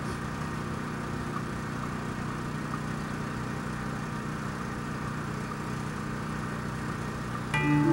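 Steady low hum of an idling engine. About seven and a half seconds in, the front ensemble comes in loudly on marimbas and other mallet percussion.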